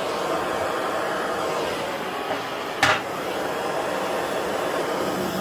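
Steady hiss of a handheld propane torch flame as it is played over a small wooden toy. A single sharp knock comes about three seconds in.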